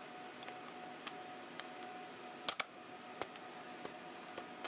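Scattered light clicks and taps of steel impact sockets and a cordless impact wrench being handled, with a sharp double click about two and a half seconds in.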